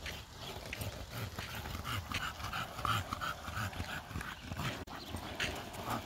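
English bulldog panting in quick, repeated puffs while riding a skateboard, over the steady low rumble of the skateboard's wheels rolling on asphalt, with a few scattered clicks.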